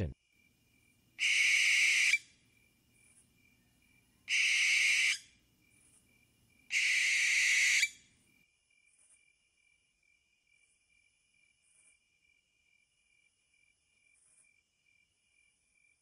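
Snowy owl giving three harsh calls, each about a second long, a few seconds apart in the first half; a faint steady high tone runs underneath.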